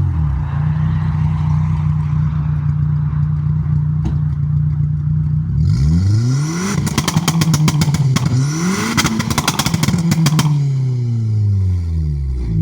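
Renault Megane GT engine idling steadily, then revved about halfway through, twice rising and falling, with a burst of rapid crackles and pops from the exhaust during the revs, settling back to idle near the end.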